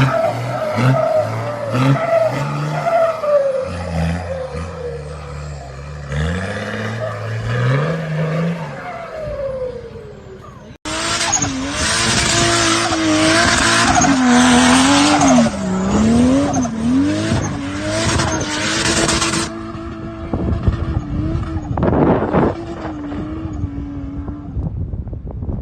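Off-road truck engines revving hard, their pitch rising and falling as the vehicles struggle over rough ground. About eleven seconds in the sound cuts abruptly to a louder clip, where an engine labours with a wavering pitch over a dense rushing noise of tyres and terrain.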